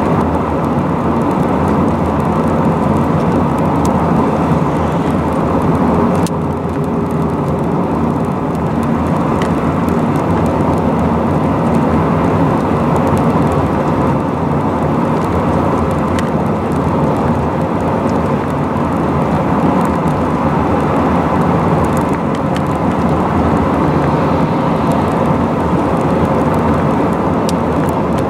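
Steady road noise inside a car cruising at highway speed: tyre noise on the road surface with wind and engine noise, with a slight drop in level about six seconds in.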